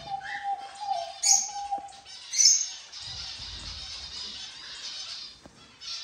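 A flock of small aviary birds chirping and chattering, with two loud sharp calls in the first half, then a steady high twittering.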